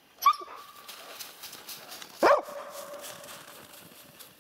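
Two short, loud animal calls about two seconds apart; the second drops in pitch and trails off in a lingering tone.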